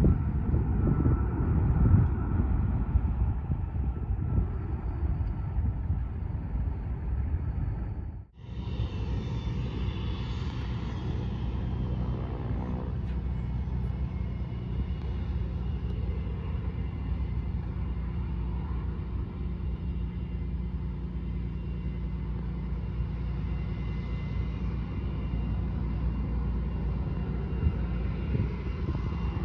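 Jet airliner climbing away, a low rumble. About eight seconds in it cuts to a taxiing QantasLink jet with rear-mounted engines running steadily, a low rumble with a steady high whine.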